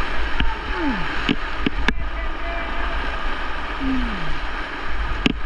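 Fast, high river water rushing steadily, with several sharp knocks, four in the first two seconds and one near the end.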